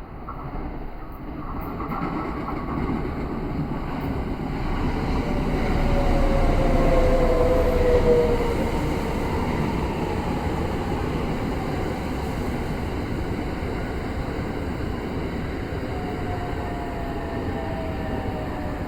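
Electric train running at the station platform, a rumbling noise that swells to its loudest about six to eight seconds in, with a falling whine twice as it slows.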